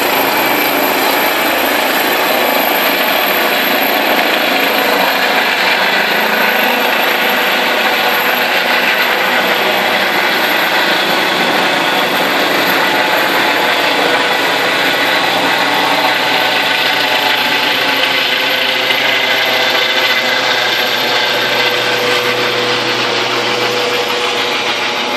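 Eurocopter EC135 rescue helicopter lifting off and climbing away: the loud, steady noise of its rotor and twin turbine engines, with a steady turbine whine running through it.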